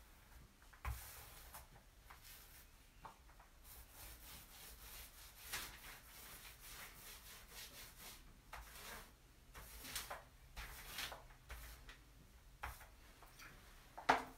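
Paint roller pushed back and forth over a countertop wet with stone-fleck coating, making faint, gritty rubbing strokes. It is the firm, even pass that presses the stone flecks flat and smooths out rough patches.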